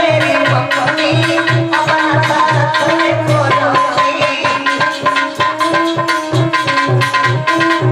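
Instrumental folk dance music: a steady, fast drum rhythm under a sustained melody line.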